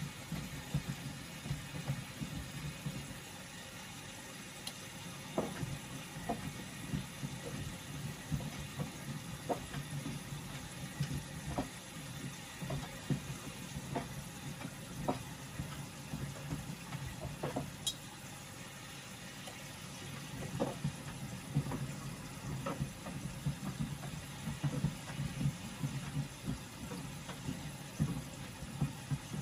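Washing machine running a wash: a steady low hum with water sloshing, and frequent irregular light knocks as the laundry tumbles in the drum.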